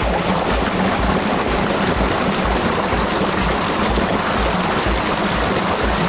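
Water gushing and splashing through a small concrete spillway into a pool, a dense, steady rush. A low, steady beat of background music runs underneath.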